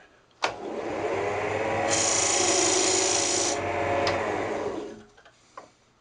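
Wood lathe switched on with a click, its motor hum rising as the blank comes up to speed. A turning tool cuts into the spinning myrtle wood blank for about a second and a half, a bright shaving hiss that starts and stops sharply. Then the lathe is switched off with a faint click and winds down to a stop.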